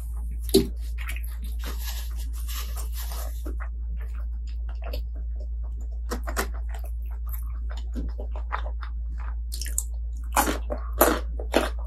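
Close-miked eating: a person chewing with many short, crisp crunching bites, the loudest crunches bunched together near the end. A steady low hum runs underneath.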